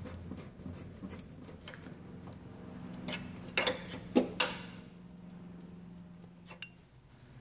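Small clicks, knocks and rubbing of hands working Twist-Lok AN hose fittings at a fuel pressure regulator, with a few sharper clacks between about three and four and a half seconds in, over a faint steady hum.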